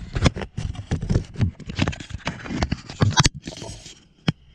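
Fingers rubbing and tapping on the camera body close to its microphone: a string of irregular scratchy clicks and knocks that thins out about three seconds in, with one last tap near the end.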